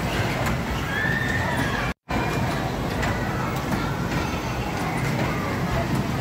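Children's ride-on amusement train running around its track, a steady rumble with faint high gliding squeals about a second in. The audio cuts out for an instant about two seconds in.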